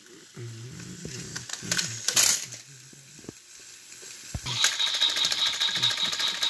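Plastic toy trains clicking and rattling as they are handled on the track, then about four and a half seconds in the battery motors of motorised Thomas & Friends toy engines switch on and run, a steady high whine with fast even ticking from the gears.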